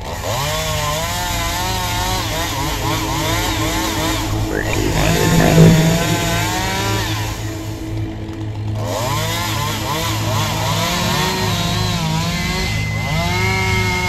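Chainsaw cutting into the base of a large, fire-hollowed dead tree, its engine revving up and falling back over and over as the chain bites into the wood.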